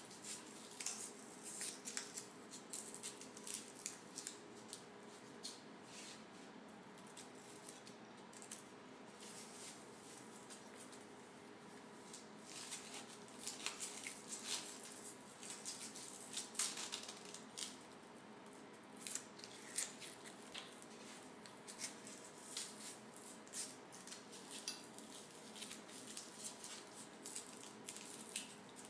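Handling noise from a plastic camera clamp and its velcro strap being fitted to a bicycle fork: irregular short scratchy rips, rustles and plastic clicks.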